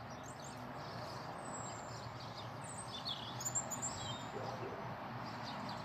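Outdoor ambience: a steady faint background hum of the village, with scattered faint bird chirps and calls.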